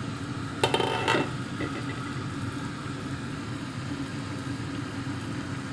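Steady mechanical hum of a running kitchen appliance beside a pan of curry on an electric hob, with one short louder sound about a second in.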